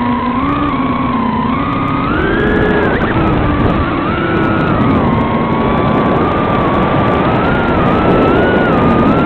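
Swallow 130 mini FPV quadcopter's motors and propellers whining, heard from on board. The pitch climbs in the first couple of seconds as it takes off, then rises and falls with the throttle over a steady rushing noise.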